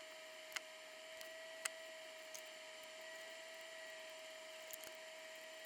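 Faint steady electrical whine and hum with a few light ticks.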